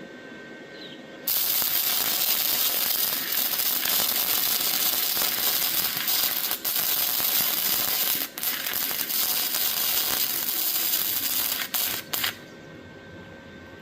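Electric arc welding: the arc strikes about a second in and crackles steadily for about eleven seconds. It breaks off briefly a few times, then stops near the end.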